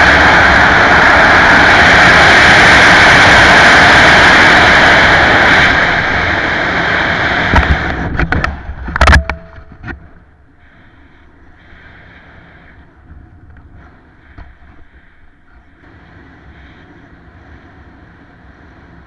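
Loud rushing wind on the jumper's camera microphone in wingsuit flight, easing off about six seconds in. About eight to nine seconds in come several sharp cracks, the loudest of them near nine seconds, as the parachute deploys and opens. After that there is only a much quieter, fluttering wind under the open canopy.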